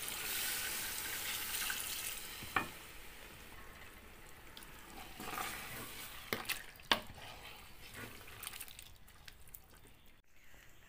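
Water poured into a hot metal pot of frying chicken, hissing and splashing for the first two or three seconds. Then a wooden spatula stirs the thinned curry, with a few sharp knocks against the pot.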